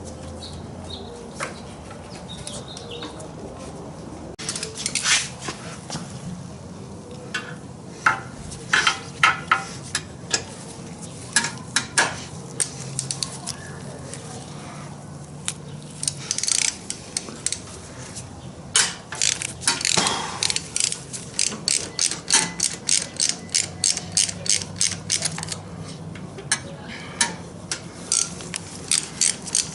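Hand socket ratchet clicking as it is worked back and forth, undoing fasteners. The clicks come in scattered short runs at first, then settle into a steady rhythm of about two to three clicks a second from about two-thirds of the way through.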